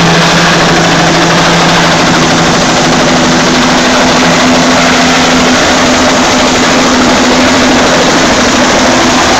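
Firefighting helicopter running close by as it lands: loud, steady turbine and rotor noise with the rush of its downwash. Under it a hum steps up in pitch about two seconds in.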